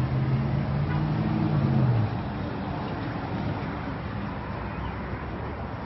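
A motor vehicle's engine running with a low steady hum, rising slightly in pitch, that stops about two seconds in, leaving an even background of street noise.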